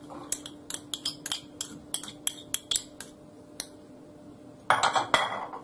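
A metal spoon clinks and taps against a small glass bowl as chopped onion is scraped out into a bowl of flour: about a dozen light, separate clicks. A louder scraping clatter of kitchenware follows near the end.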